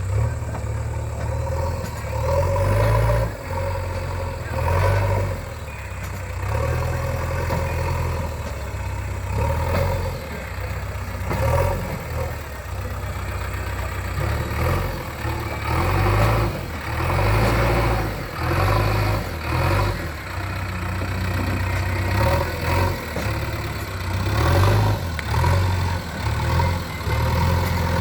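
JCB 3DX backhoe loader's diesel engine running, revving up and easing off again and again.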